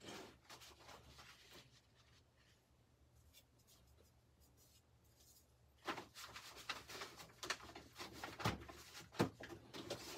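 Faint scattered rustling and clicking, busier and louder from about six seconds in: a sheet of embroidery stabilizer being handled and fitted into an embroidery hoop.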